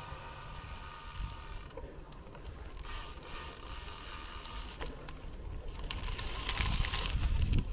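Bicycle freewheel ratchet ticking as the bike coasts, over a steady low rumble. A louder hiss with small clicks builds near the end.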